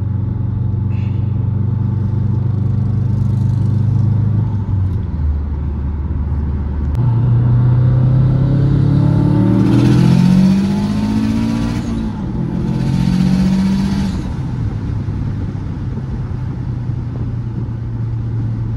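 Turbocharged Subaru WRX flat-four, fitted with a big turbo, running steadily, then dropping to low revs for a couple of seconds. It then pulls hard with rising revs and a loud hiss over the top, dips briefly about twelve seconds in like a gear change, and settles back to steady cruising.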